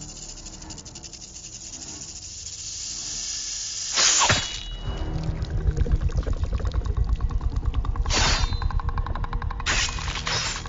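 Film sound mix: a rattlesnake's rattle buzzes and builds, then a sudden loud whoosh-and-hit cuts in about four seconds in. A fast, low pounding pulse follows, with further sharp bursts near the end.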